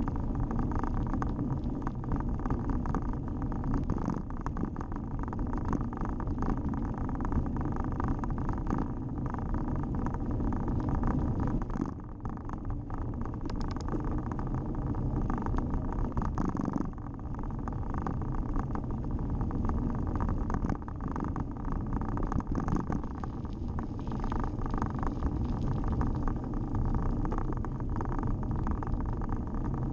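A cross-country mountain bike being ridden on a rough tarmac lane, heard from a camera on the bike or rider: a steady low rumble of tyres and wind on the microphone, with frequent small knocks and rattles over bumps. The noise dips briefly about twelve seconds in and again a few seconds later.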